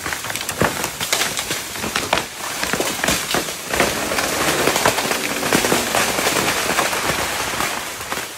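A large tree coming down through the forest: a dense run of wood cracking and branches snapping, building to its thickest about halfway through and thinning out near the end.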